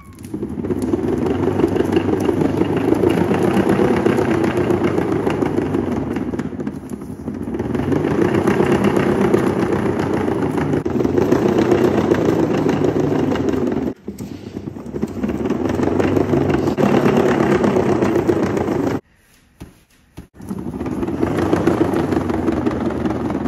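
One Fast Cat exercise wheel rumbling as a cat runs in it, the wheel turning on its base. The rumble swells and eases with the cat's pace and breaks off abruptly for about a second and a half near the end before picking up again.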